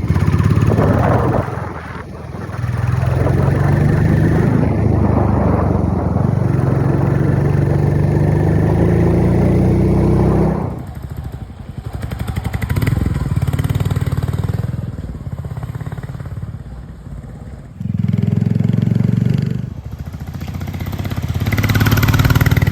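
Royal Enfield Classic 350's single-cylinder engine through its stock exhaust, pulling with a slowly rising pitch for about ten seconds, then dropping back sharply as the throttle closes. It is opened up again twice near the end.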